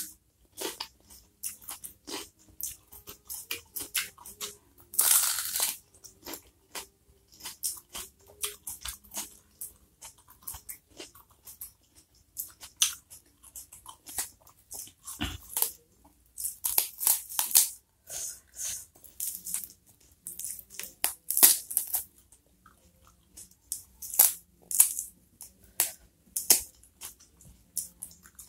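Raw bitter melon (pare) being bitten and chewed close to the microphone: a rapid, irregular run of crisp crunches and crackles, with a few longer, louder crunching bites.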